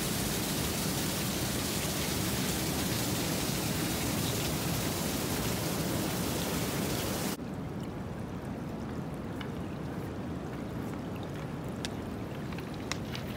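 Steady, even rushing noise, then an abrupt cut about seven seconds in to quieter water running over rounded beach pebbles, with scattered small sharp clicks of stones.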